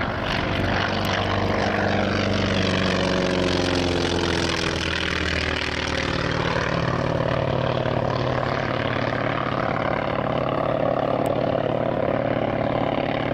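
North American T-28C Trojan's nine-cylinder Wright R-1820 radial engine and propeller on a low flypast. The engine note drops in pitch over the first few seconds as the aircraft passes, then settles into a steady drone as it flies away.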